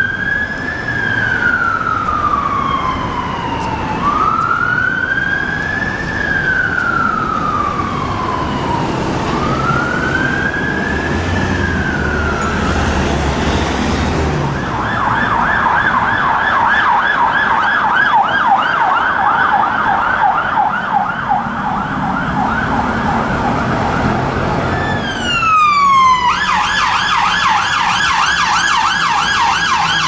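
London Fire Brigade fire engine siren on a slow wail, three rising-and-falling cycles of about four to five seconds each. About fifteen seconds in, police car sirens take over on a fast yelp, which swoops down and switches to an even faster, shriller yelp near the end.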